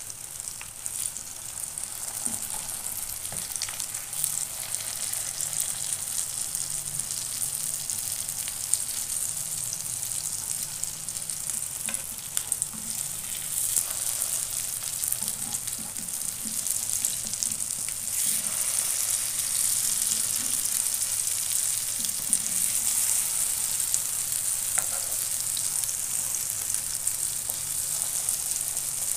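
Chicken shami kababs shallow-frying in hot oil in a pan: a steady sizzle full of small crackling spatters, growing louder about two-thirds of the way through. Now and then a wooden spatula and a knife tap and scrape against the pan as the patties are turned.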